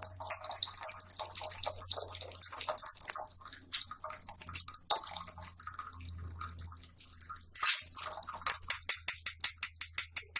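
Boiled herbal decoction being strained: trickling liquid with scattered clinks and scrapes. Near the end comes a quick run of sharp clicks, about five a second.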